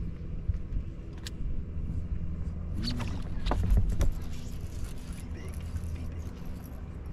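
Steady low hum and rumble on a bass boat's bow deck, with a few sharp knocks and a louder thump around three to four seconds in as the angler sets the hook hard on a fish.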